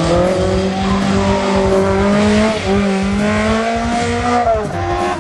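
Competition car's engine revving hard under acceleration, its pitch climbing and then dropping at gear changes, about two and a half seconds in and again near the end.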